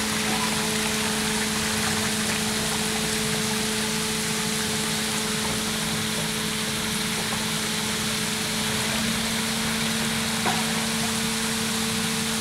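Water spilling over the lowered crest gates of a scale-model barrage and churning in the tank below: a continuous rushing splash with a low hum underneath.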